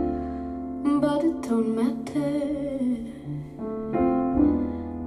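Piano-led music with sustained chords and a deep low bass, played back through a Bowers & Wilkins Formation Bar soundbar and Formation Bass subwoofer.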